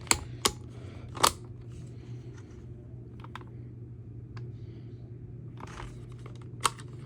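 Scattered sharp clicks and knocks from a plastic smoke alarm being handled, the loudest about a second in, over a steady low hum. The alarm itself is not sounding.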